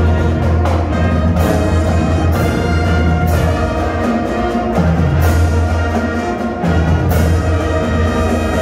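Marching band playing in a school gymnasium: brass, including sousaphones on a steady low bass, over drums that hit about once a second.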